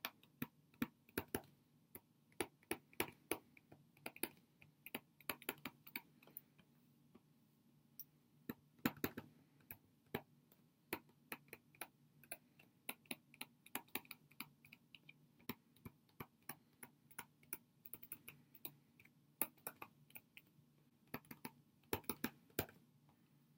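Faint, irregular clicks of a stylus tapping and scratching on a tablet screen during handwriting, coming in quick clusters with short gaps.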